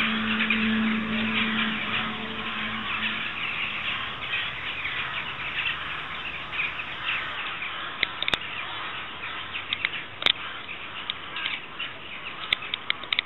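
Many birds chirping and calling together in a dense, continuous chatter. A low steady hum underneath fades out about three seconds in, and there are a couple of sharp clicks later on.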